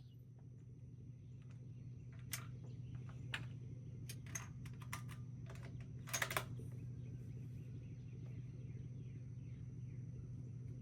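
A series of sharp clicks and small knocks, the busiest about six seconds in, over a steady low hum that fades in during the first two seconds.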